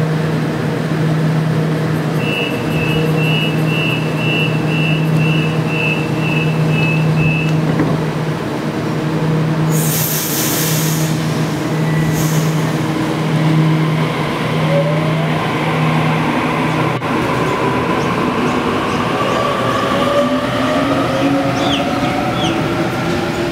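Sydney Trains Waratah A-set electric train at a platform: a steady low hum with its door-closing warning beeping evenly for about five seconds, then a short burst of air hiss about ten seconds in. From about fourteen seconds in, the traction motors' whine climbs in pitch as the train pulls away.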